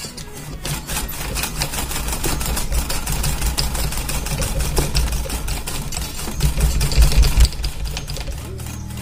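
Guitar tuning machine on a Les Paul headstock being turned quickly to wind a new string onto its post: a fast, continuous run of small rattling clicks with low handling rumble beneath.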